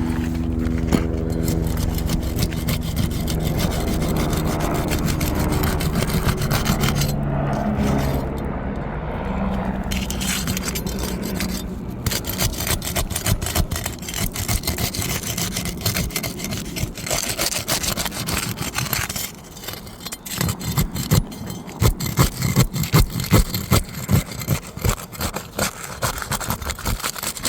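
A thin metal pry bar scraping and rubbing under asphalt 3-tab shingles as it is worked back and forth, with quick repeated strokes in the last third. A steady engine-like hum fades out in the first eight seconds or so.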